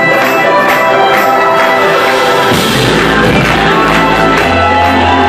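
Live band music heard loud through the audience's phone microphone in a club, with sustained chords over a steady beat. A deep bass comes in about halfway through.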